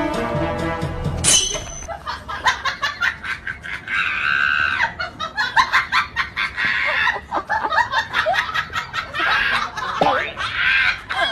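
Music that cuts off about a second in, followed by repeated bursts of people laughing, a dubbed laugh track.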